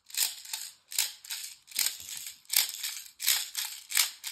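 Airsoft BBs rattling as they are pumped from a speedloader into an ASG Storm Apocalypse airsoft grenade, in quick rhythmic bursts about two to three a second.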